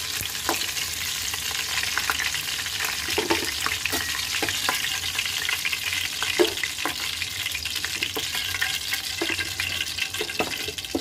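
Batter-coated chicken pieces deep-frying in hot oil in a steel pan, a steady sizzle, with scattered clinks of a slotted spoon against the pan as the fried pieces are lifted out.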